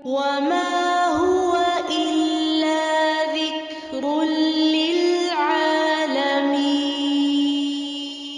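Quran recitation: one voice chanting in long, melodic held notes with ornamented glides between pitches, in two phrases with a short breath about three and a half seconds in.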